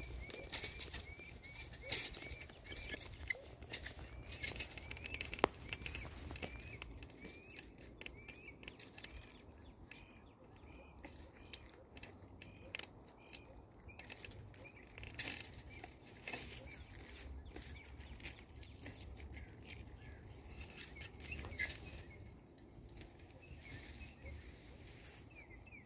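Faint evening field ambience: a small creature's high chirp repeats about three times a second, fades after several seconds and comes back faintly later. Under it run a low wind rumble and scattered rustles and clicks.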